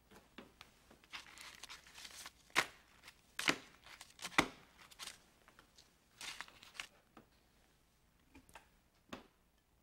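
Paper rustling on a desktop, with a few sharp clicks and taps; the loudest come between about two and a half and four and a half seconds in, with a couple of faint clicks near the end.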